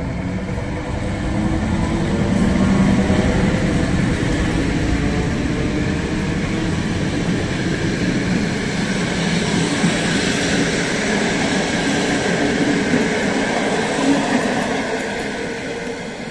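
EP05 electric locomotive pulling out and passing close by, its motors giving a few rising tones, followed by the passenger coaches rolling past on the rails. The noise fades near the end as the train moves away.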